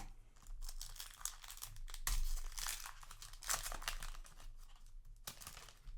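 Yu-Gi-Oh! booster pack's foil wrapper crinkling and tearing as it is opened by hand, in irregular crackles that are loudest about two seconds in and again a little past the middle.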